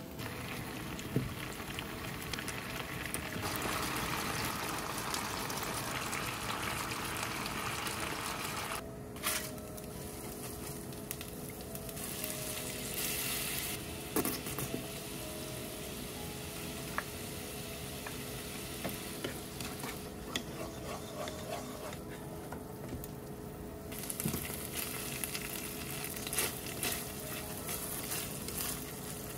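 Sauce sizzling in hot frying pans around pan-fried meat-stuffed green peppers and small pork hamburg patties, with chopsticks moving the patties in the sauce. The sizzle changes abruptly in loudness a few times.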